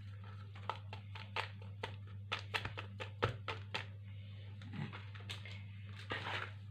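A run of light clicks and taps as baking powder is added to a bowl of soft butter-sugar dough, then a short soft squishing near the end as a hand starts kneading it. A steady low hum lies underneath.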